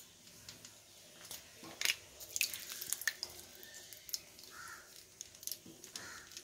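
Thick curd pouring out of a container onto sliced onions in a steel bowl: faint wet plops and a few light clicks, mostly in the first half.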